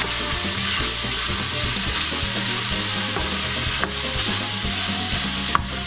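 Chicken wings and chopped vegetables sizzling in oil in a large stainless steel pot while a spoon stirs them, with two sharp clicks of the spoon against the pot in the second half.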